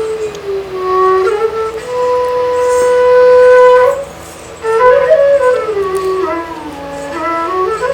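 A single melody line of a Nepali thade bhaka folk song, long held notes joined by slides and turns, breaking off briefly about four seconds in.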